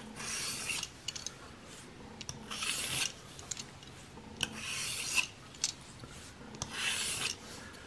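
Steel broadhead blade, held in a roller sharpening guide, drawn across a 1200-grit sharpening plate: four short scraping strokes about two seconds apart, with small clicks between them. These are the light passes that break off the burr left on the edge.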